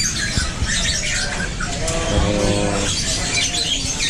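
Many caged birds chirping and squawking at once in a dense, overlapping chorus of short high calls. About two seconds in, a lower, drawn-out tone lasting about a second sounds over them.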